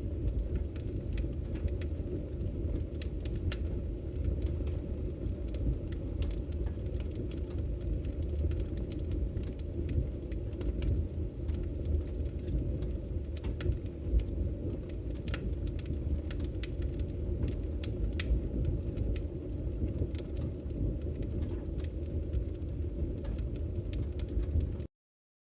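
Wood fire burning in a fireplace: a steady low roar with scattered sharp crackles and pops, cutting off suddenly near the end.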